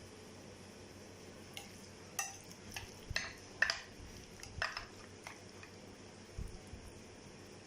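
A serving utensil clinking and scraping against a dish several times, followed by a single dull knock near the end.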